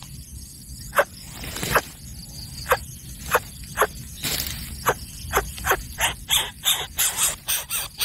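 Greater coucal chick giving short, sharp squeaky begging calls, repeated at irregular intervals and coming quicker, about three a second, in the last two seconds as it gapes for food.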